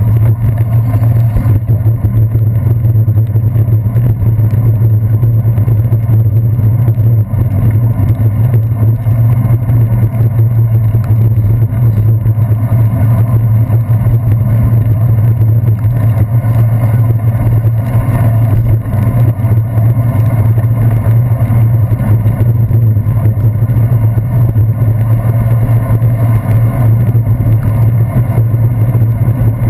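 Loud, steady low rumble of road vibration and wind picked up by a handlebar-mounted GoPro Hero 2 on a bicycle riding through traffic on wet city streets. The sound is muffled, with little treble.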